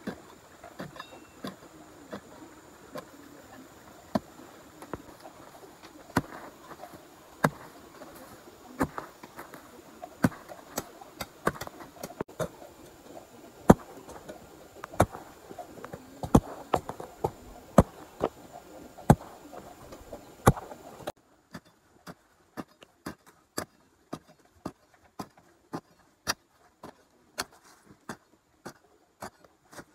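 A hand tool strikes over and over in a steady working rhythm, one sharp knock about every two-thirds of a second. About two-thirds of the way through, the background hiss suddenly drops out and the knocks come a little quicker, about two a second.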